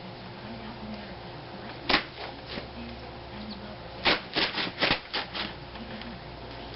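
A 35 mm deep well socket and its bar being fitted onto the wheel hub nut: short clicks and knocks, one about two seconds in and a quick run of several between about four and five and a half seconds.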